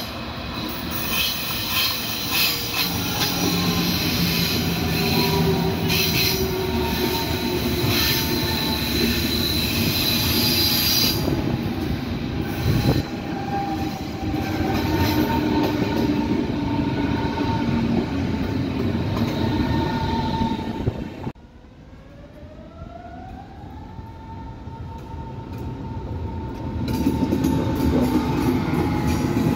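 Berlin S-Bahn electric multiple-unit train passing close by on a curve, with the rumble of its wheels, a high squeal from the wheels and the whine of its electric motors. About 21 seconds in the sound drops off abruptly, then a motor whine rises in pitch and holds as a train pulls away, getting louder toward the end.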